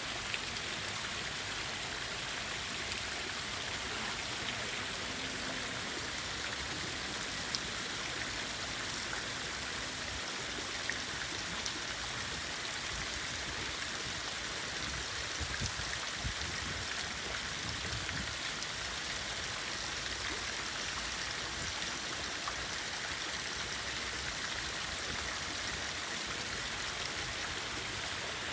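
Fountain water falling and splashing steadily into a pool: a constant rushing hiss with a few small drip-like ticks.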